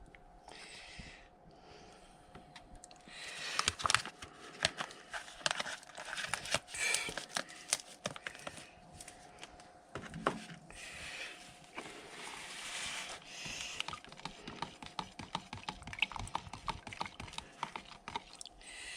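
A stirring stick working through freshly mixed paint in a mixing container: irregular clicks and knocks with short scraping, rustling stretches, as red metal flake is stirred into black base coat.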